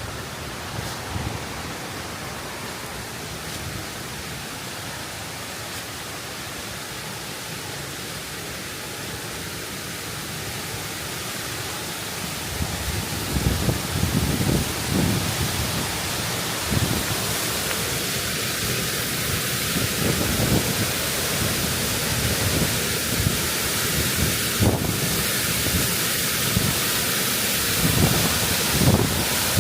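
Steady rush of a waterfall and its stream, growing gradually louder as it nears. From about halfway through, gusts of wind buffet the microphone with low rumbles.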